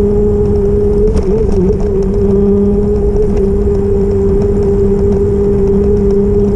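E-bike motor whining at a steady pitch while riding, with a brief waver about a second in, over a low rumble of wind and road noise.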